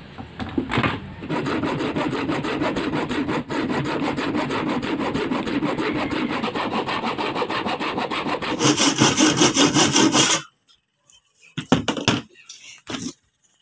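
Hand saw cutting through a palochina (pine) board in rapid back-and-forth strokes, louder over the last couple of seconds of the cut, then stopping abruptly. A few light knocks follow.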